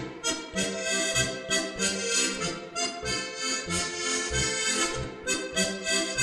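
Lively accordion polka played as background music, with a regular bass beat under the melody.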